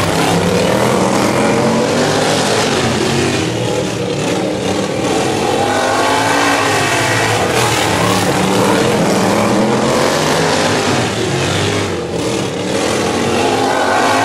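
Several outlaw-class racing lawn mowers running flat out in a pack, engine pitch rising and falling as they pass close and pull away around the oval.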